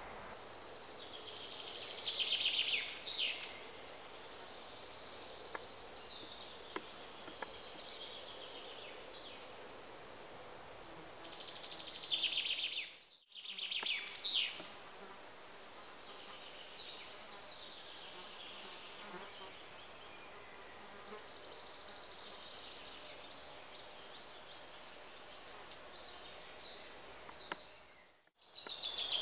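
Forest ambience: high buzzing trills come every few seconds over a faint steady hiss, with a few faint clicks.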